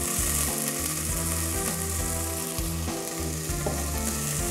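Onion-tomato masala frying in oil in a clay handi, with a steady sizzling hiss and soft background music underneath.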